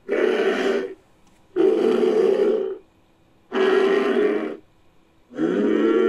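Made-up Bramatherium call, mixed from camel, moose and bull recordings: three low animal calls about a second long each, with short gaps between them. A longer fourth call begins near the end, opening with a rise in pitch.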